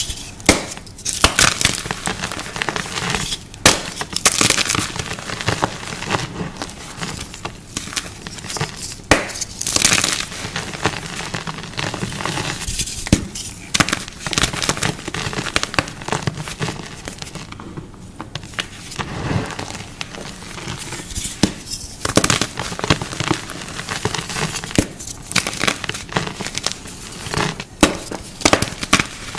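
Close-miked ASMR crunching: something brittle being crushed or broken, a dense run of irregular crunches, crackles and sharp snaps, with a short lull a little past halfway.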